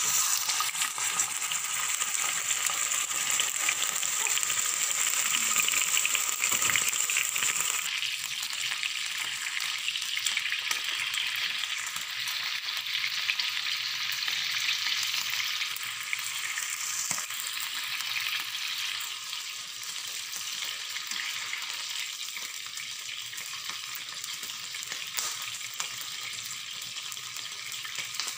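Marinated beef strips frying in hot oil in a nonstick pan: a sizzle that starts at once as the meat goes in, with small pops throughout. The sizzle is loudest for the first several seconds and eases a little after about eight seconds.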